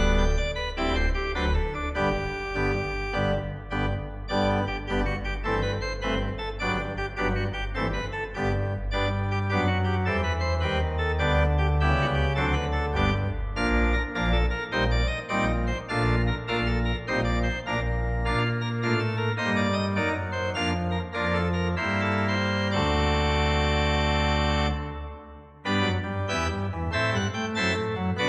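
Organ playing with fast-moving notes over low bass notes. Near the end one chord is held for about two seconds, the sound briefly drops away, and then the playing resumes.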